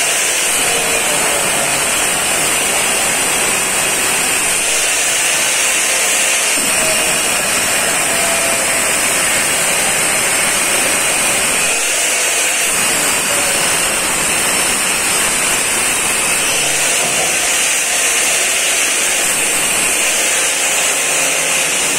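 Construction machinery running loudly and without a break, with a high, steady whine that holds one pitch.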